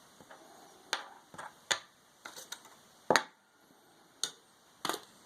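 Small parts of a disassembled Dremel 300 rotary tool being handled and set down on a hard surface: about eight sharp, irregular clicks and knocks, the loudest about three seconds in.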